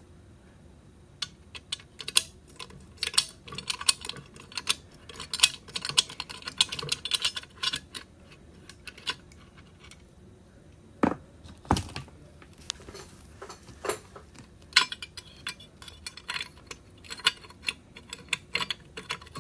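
Hand tools and metal transmission parts clinking and clattering as a T-90 transmission is taken apart: a long run of quick light metallic clicks, with two heavier knocks a little past halfway.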